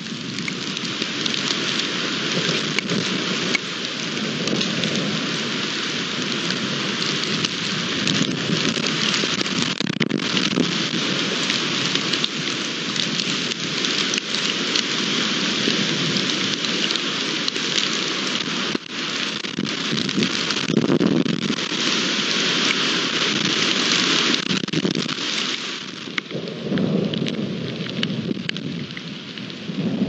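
Heavy rain falling steadily during a thunderstorm, with thunder rumbling low underneath. The rumbling swells up a couple of times in the second half.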